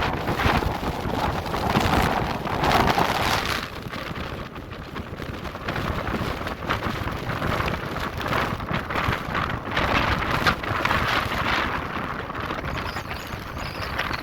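Strong gusting wind buffeting the microphone, a rough rushing noise that swells and eases with each gust, strongest in the first few seconds. The hiker guesses the wind at around 40 knots.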